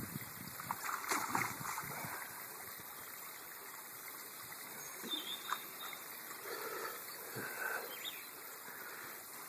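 Shallow river water running and trickling, with a few light splashes as a large flathead catfish is held in the water to be released.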